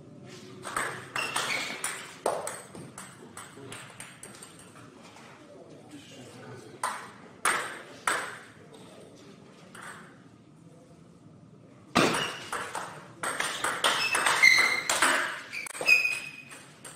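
Table tennis rallies: the plastic ball clicking off the rubber-faced paddles and bouncing on the table in quick runs of strokes. There are two short exchanges in the first half and a longer, busier rally in the second half.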